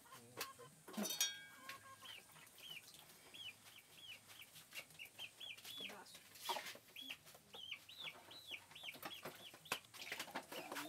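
Faint bird chirping: a long run of short, high, arched chirps, two or three a second, with a few sharp clicks among them.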